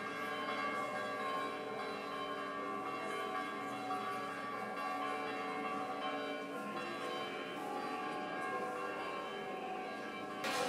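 Orthodox church bells ringing for the Sunday service: several bells sounding together in a continuous, overlapping peal with a steady level.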